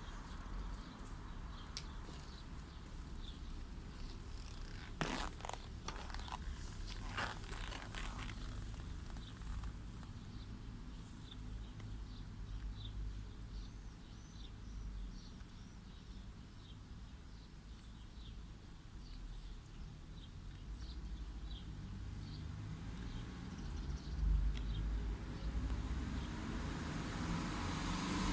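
Outdoor ambience of distant traffic as a steady low rumble, with small birds chirping on and off. A few sharp clicks come about five to eight seconds in, and the rumble swells near the end as a vehicle comes closer.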